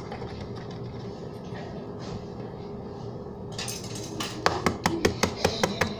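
Quiet room background, then a little past halfway a quick run of sharp taps and clicks against a bowl, an egg being knocked on the rim to crack it.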